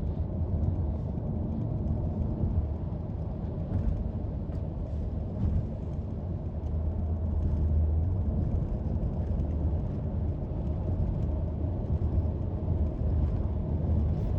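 Steady low rumble of road traffic: vehicle engines and tyres, with a heavy truck among them.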